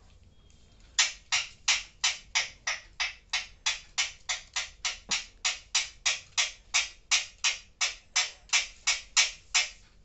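Alexandrine parakeet clucking like a hen: a long run of short, sharp 'pak' calls, about three and a half a second, starting about a second in and stopping just before the end.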